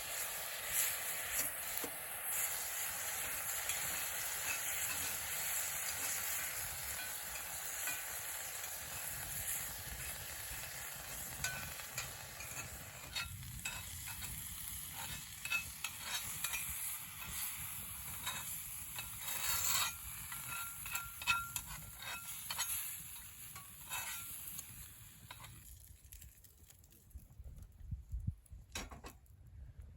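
Food sizzling in a frying pan, with a utensil tapping and scraping in it. The steady sizzle thins out about halfway through and gives way to scattered taps, then dies down near the end.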